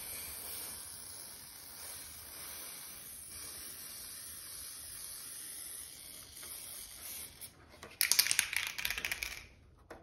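Aerosol spray paint can spraying: a steady hiss that stops about seven and a half seconds in. Near the end comes a loud second and a half of rapid clicking.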